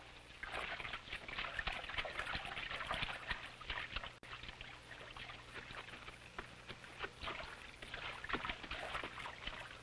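Irregular rustling and crackling of leaves and branches as men push through dense jungle undergrowth. It grows louder about half a second in and swells again near the end.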